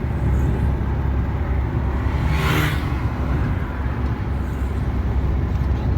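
Steady engine and road rumble inside the cab of a Hyundai HR light truck on the move, with a brief rushing sound about two and a half seconds in.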